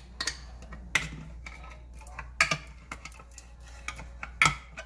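About five sharp clinks and knocks of a tin can and cooking pot as green enchilada sauce is poured from the can into the pot.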